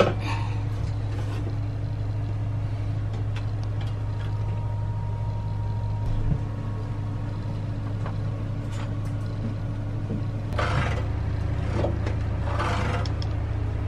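A steady low mechanical hum, with a deeper layer joining about ten and a half seconds in, and a few faint scraping, handling noises near the end.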